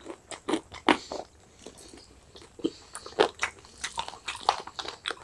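Two people biting and chewing fried chicken lollipops: a string of short, irregular mouth sounds, the loudest about a second in and again about three seconds in.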